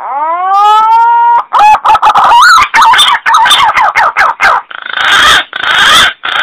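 Green pigeon (punai) calling: a drawn-out whistle that rises and then holds, followed by a quick run of warbling, gliding notes, and near the end three harsh rasping notes.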